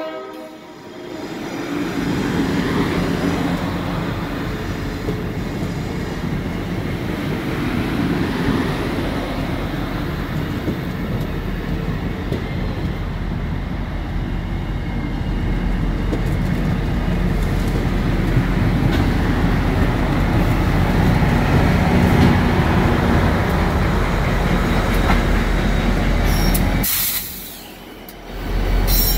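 Slow-moving MARC passenger coaches rolling over a grade crossing, wheels rumbling and clattering steadily, followed by the train's diesel locomotives passing with a low, steady engine hum from about eleven seconds in. The sound drops away briefly near the end.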